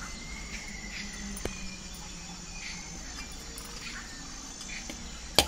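Faint clinks of a steel spoon against a steel mixing bowl as curd is added to raw chicken pieces, over steady high-pitched chirring in the background. One sharp click near the end is the loudest sound.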